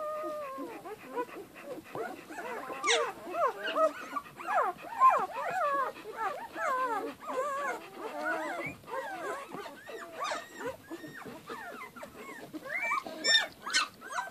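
Two-day-old puppies squeaking and whimpering: many short, overlapping calls that rise and fall in pitch, with a few sharper, higher squeals about three seconds in and again near the end.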